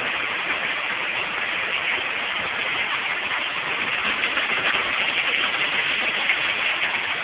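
Hail falling hard: a dense, steady rattle of countless small ice pellets striking surfaces, mixed with rain.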